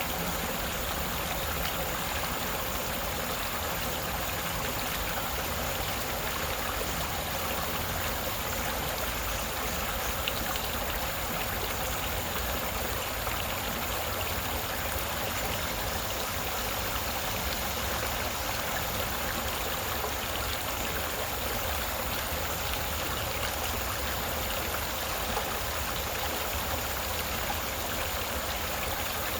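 Creek water babbling and trickling over rocks, a steady, unbroken rush.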